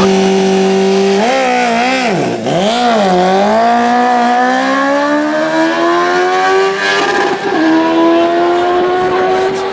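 Sport motorcycle engine held at steady high revs, then dipping and wavering as it launches about a second in. The revs then climb steadily, with an upshift about seven seconds in and the revs rising again.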